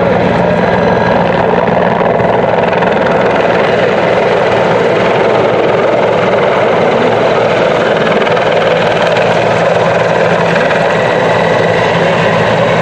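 Mil Mi-24V (Mi-35) attack helicopter in close flight, its two turboshaft engines and five-blade main rotor making a loud, steady noise. A low tone fades in the middle and comes back about two-thirds of the way through.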